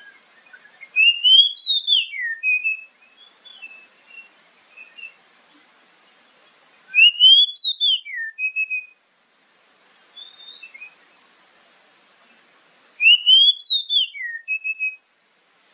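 Oriental magpie-robin singing the same clear whistled phrase three times, about six seconds apart: a rising whistle that peaks and falls away, then a short steady note. A few soft, short notes come between the phrases.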